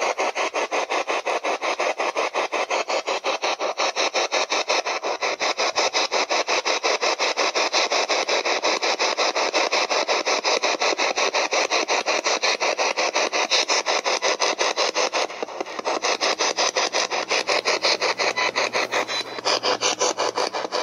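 Handheld spirit-box radio sweeping rapidly through stations, giving a steady choppy stutter of static bursts several times a second.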